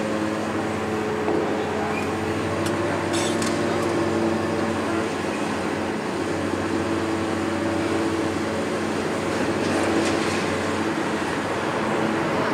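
Hitachi 470 tracked excavator's diesel engine running steadily under load, with a few short clicks and clatters about three seconds in and again near ten seconds.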